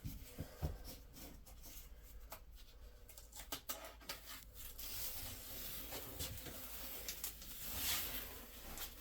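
Faint hand-tool work: scattered light clicks and a soft scraping that swells about five seconds in and fades near the end, as sealant is spread over the board's seams and screw heads.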